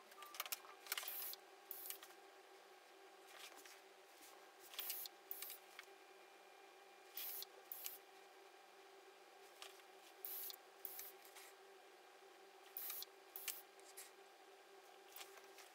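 Faint steady hum of lab equipment with short, crisp clicks and rustles every second or two, often in pairs. These are small handling sounds of filters, tweezers and glassware at an analytical balance.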